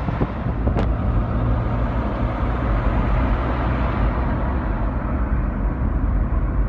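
Steady road noise and engine hum of a car driving along a city street, with one sharp click about a second in.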